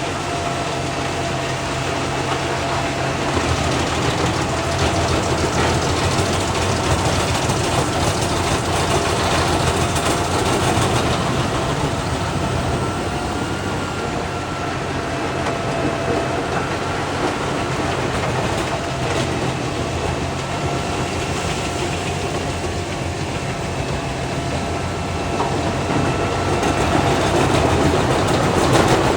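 Large wood chipper running steadily under power, a loud, even mechanical noise with a deep engine hum and a faint steady high whine over it.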